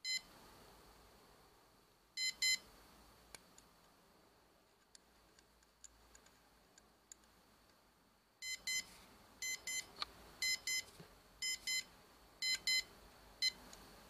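Swiza quartz alarm pocket watch's electronic alarm beeping in short, high double beeps. There is one pair at the start and another about two seconds in, then from about eight and a half seconds a run of pairs comes about once a second. A few faint clicks fall between them.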